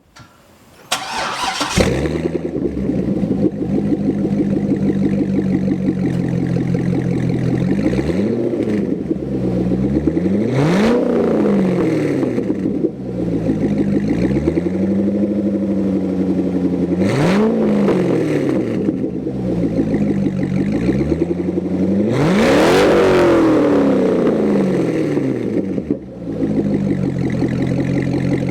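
C6 Corvette V8 with a straight-pipe muffler-delete exhaust being started: the starter whirs briefly about a second in and the engine fires about two seconds in. It then idles loud and lumpy, with several short throttle blips whose pitch rises and falls, the highest and longest near the end.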